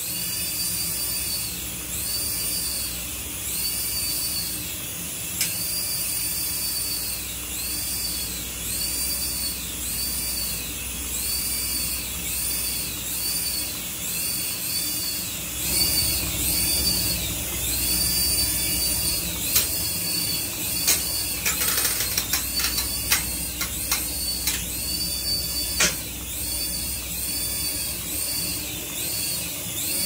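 Small coaxial RC toy helicopter's electric motors and rotors whining steadily, the pitch rising and falling about once a second as the throttle changes. About two-thirds of the way through comes a run of sharp clacks.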